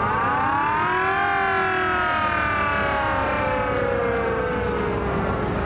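A siren rising quickly in pitch for about a second, then slowly falling away until it fades near the end.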